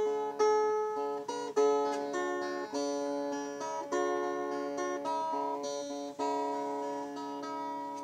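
Yocky-built mountain dulcimer strummed in a slow melody, one strum about every second, each ringing out and fading, over a steady drone note.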